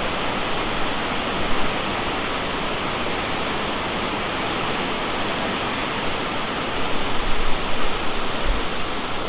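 Dudhsagar Falls thundering down, a steady dense roar of falling water. From about seven seconds in, an uneven low rumble rises under it.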